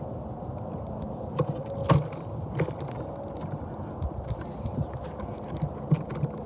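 Union Pacific manifest freight train rolling past: a steady rumble of steel wheels on rail with irregular clicks and clacks, and a faint thin squeal about a second and a half in.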